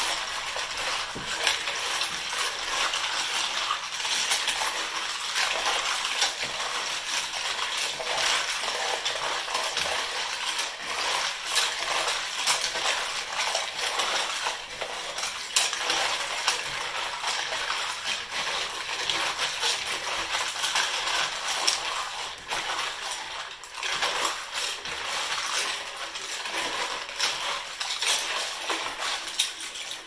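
Plastic keyboard keycaps being stirred and rubbed by hand in a bowl of soapy water: a steady clatter of many small clicks as the keycaps knock against each other and the bowl, with the water swishing.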